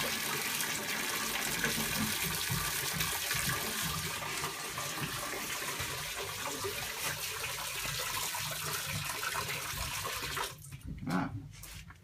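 Water from a steam boiler being filled above its skim line, running out of the skim tapping through a hose into a bucket in a steady rushing flow. It cuts off suddenly about ten and a half seconds in, followed by a few knocks.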